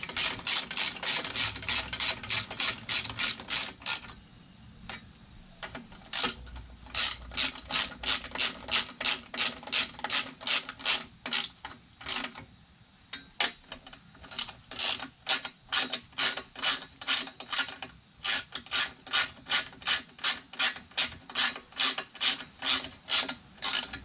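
Hand ratchet wrench clicking in quick, even runs of about four clicks a second as exhaust bolts are tightened, with short breaks between runs.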